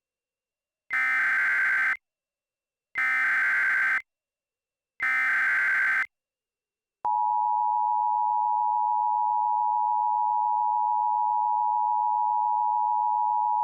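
Emergency Alert System SAME header: three one-second bursts of digital data tones, a second apart. About seven seconds in, the steady two-tone EAS attention signal begins and holds.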